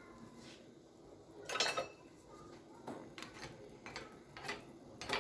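Kitchenware being handled: a ringing clink about a second and a half in, then a string of light knocks and taps.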